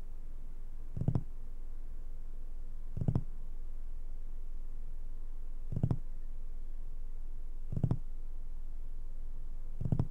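Knocking from the horror film's soundtrack: five double knocks, evenly spaced about two seconds apart, over a low steady hum.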